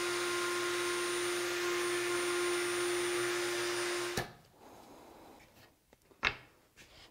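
Table-mounted router running steadily with a high whine while flush-trimming a wooden divider to its template. The sound cuts off abruptly about four seconds in, and a single sharp wooden knock follows about two seconds later as the board is set down on the bench.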